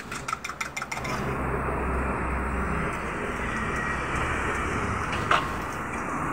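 An egg frying in oil in a wok over a gas burner: a steady rushing noise with a low rumble sets in about a second in, after a run of quick ticks. A single sharp clink comes about five seconds in.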